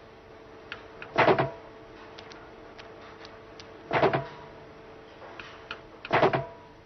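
Skinner box apparatus at work: faint ticks of a pigeon pecking the response key, and three louder short mechanical clatters, about a second in, about four seconds in and just after six seconds, from the food-reward mechanism operating. A steady electrical hum runs underneath.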